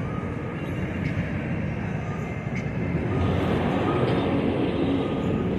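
Steady low rumble and rush of a boat cruising on the river, growing louder about three seconds in.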